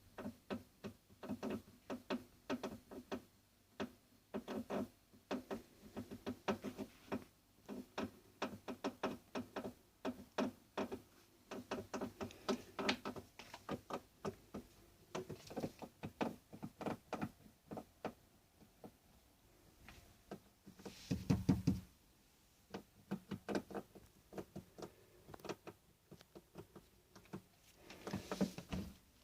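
The strange garden noise: a long run of quick, irregular clicks and knocks, several a second in uneven clusters, with a louder, deeper burst about two-thirds of the way through.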